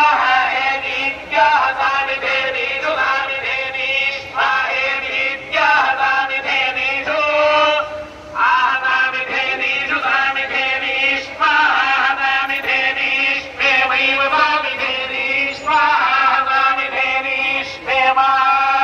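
Devotional chanting in short phrases of held, steady notes with brief pauses between them, in the manner of Vedic recitation.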